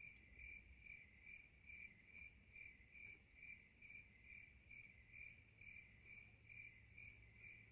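Faint cricket chirping: a single high chirp repeated evenly, about two a second.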